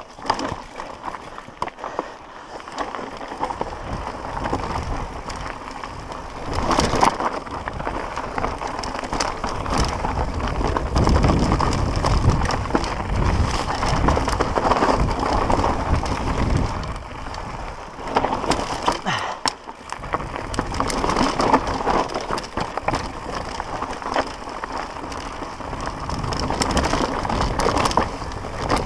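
Mountain bike descending a rough, rocky dirt trail: tyres running over dirt and stones and the bike rattling over bumps, with many sharp knocks and a low wind rumble on the camera microphone.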